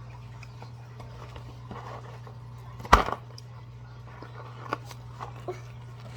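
A steady low hum with one sharp knock about three seconds in and a few fainter clicks and taps.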